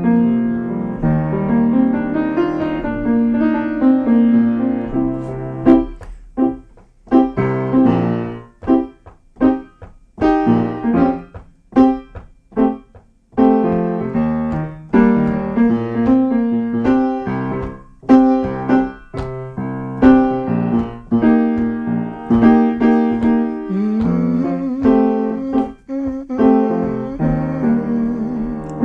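Solo piano music playing chords, with a stretch of separate struck chords and short pauses in the middle.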